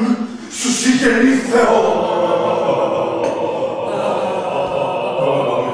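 Actors' voices in a vocal training exercise: short voiced cries with breathy gusts in the first second and a half, then a long, held, chant-like tone that slowly fades near the end.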